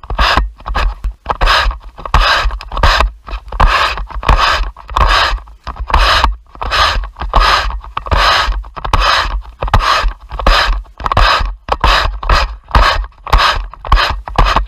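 A stiff-bristled yard broom sweeping a tarmac driveway: short scraping strokes, about two a second.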